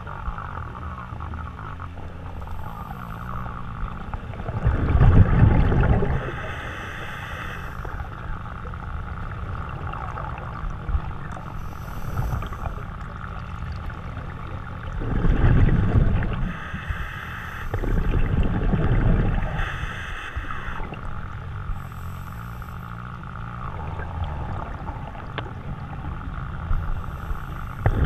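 Scuba diver's regulator heard underwater: short hisses of breathing in and several loud burbling rushes of exhaled bubbles, over a steady muffled water noise.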